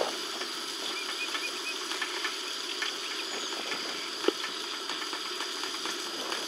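Steady outdoor background hiss with a few faint high bird chirps about a second in, scattered small clicks, and one sharper click a little past four seconds.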